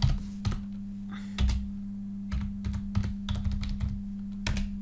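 Computer keyboard being typed on: separate, unevenly spaced key clicks as a short shell command is entered, over a steady low hum.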